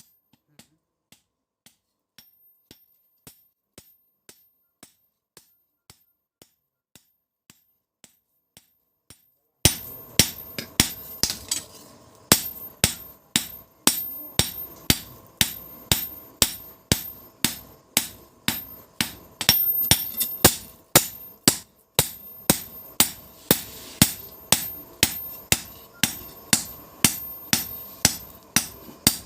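Hand hammer striking steel on an anvil, the forging of a billhook blade. Faint, evenly spaced taps at about two a second give way, about ten seconds in, to loud ringing blows at two to three a second.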